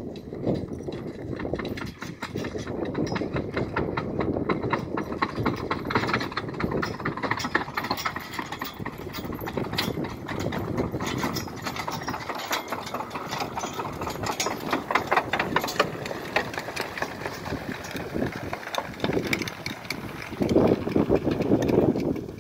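Horse-drawn manure spreader at work behind a pair of draft horses: a continuous rattling and clattering of the spreader mechanism as it throws out manure, growing louder briefly near the end.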